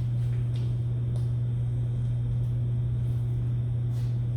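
A steady low hum with a rumbling noise under it and a few faint short ticks.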